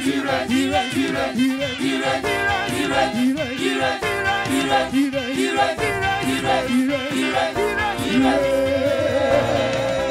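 Church choir singing a praise song through a PA, with instrumental accompaniment; a long note is held near the end.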